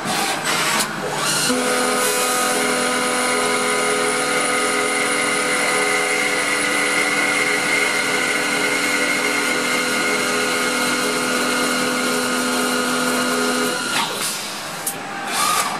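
CNC long screwdriver-bit making machine running through a machining cycle on a long bit: a steady motor and cutting whine with several fixed tones sets in about a second and a half in and cuts off about 14 seconds in with a click, followed by a few short sharp noises near the end.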